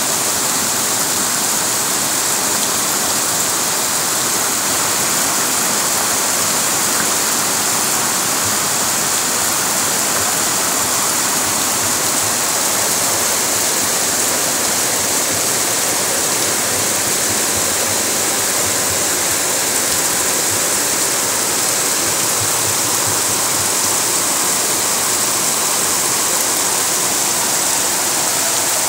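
Floodwater rushing down a street in heavy rain: a loud, steady roar of running water and falling rain.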